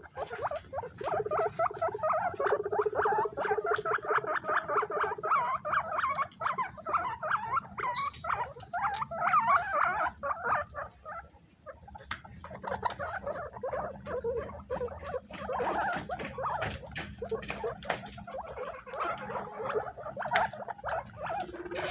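Several guinea pigs squeaking, a dense run of short wavering calls overlapping one another, mixed with quick small clicks and scuffling as they jostle over banana. The calls drop away briefly about halfway through, then pick up again.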